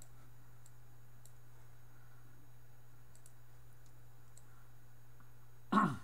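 Quiet room tone with a steady low hum and faint, scattered clicks. Near the end comes one brief, loud vocal sound, about a third of a second long.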